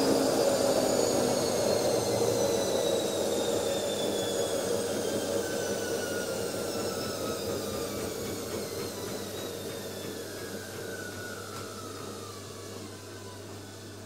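Automatic washing machine draining: a steady mechanical rushing with a whine that slowly falls in pitch, the whole sound gradually fading away.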